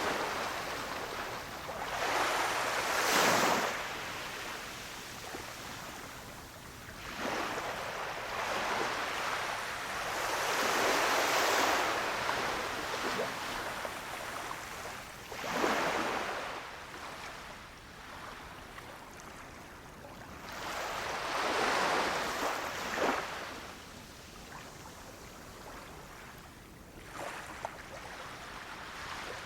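Small waves breaking and washing up on a beach, a fresh surge swelling and fading every four to six seconds, some with a sharp crash at the crest.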